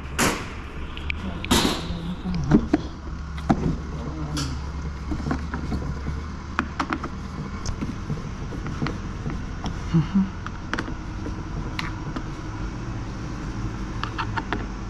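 Scattered clicks and knocks of parts and hand tools being handled, over a steady low rumble, with a cluster of quick clicks near the end.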